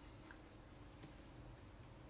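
Near silence: faint kitchen room tone with a low steady hum and a couple of faint soft ticks.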